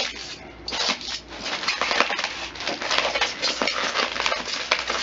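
Packaging crinkling and rustling as it is handled and pulled open, a dense stream of small crackles.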